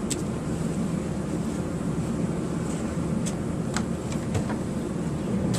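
A steady low rumble, with a few short light clicks of small items being handled.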